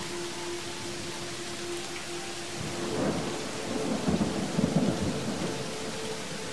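A deep rumble like thunder swells about three seconds in and dies away over two seconds or so, over a steady hiss like rain, with faint held tones underneath.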